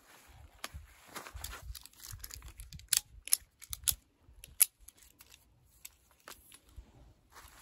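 Camp cot being assembled: nylon fabric rustling as an aluminium pole is pushed through its sleeve, then a quick series of sharp clicks and knocks as the pole end is worked into its plastic end clip, about five of them in the middle, the last the loudest.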